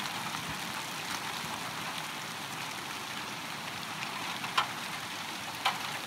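Small hail falling steadily on the ground, an even hiss, with two sharper ticks near the end.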